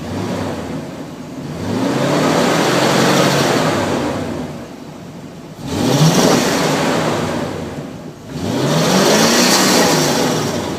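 1990 Mercedes-Benz 560 SEC's 5.5-litre V8 with its stock exhaust, revved three times, the pitch rising and falling back each time, the middle rev short and sharp.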